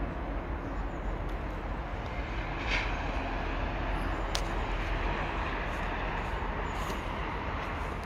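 Wind buffeting a camera's built-in microphone: a steady, heavy rumble with hiss above it, broken by a couple of short clicks, the sharpest about four and a half seconds in.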